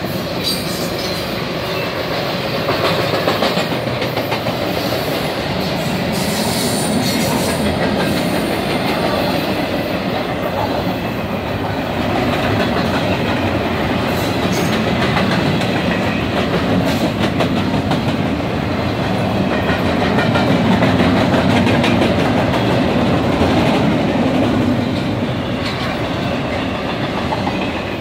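Intermodal freight train's cars rolling past close by: a steady rumble of steel wheels on rail, with the clickety-clack of wheels over rail joints.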